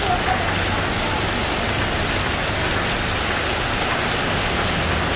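Heavy downpour: steady rain pouring onto a flooded street and pavement.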